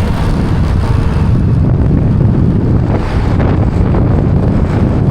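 Wind buffeting the microphone on a moving motorcycle: a steady, loud low rumble of air and road noise.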